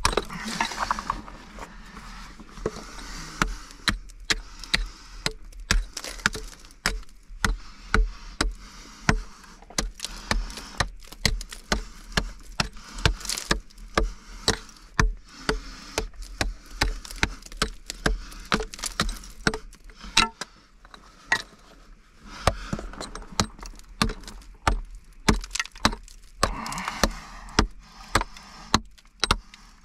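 Repeated sharp knocks or impacts, about two a second and irregular, each with a low thud, thinning out briefly past the middle.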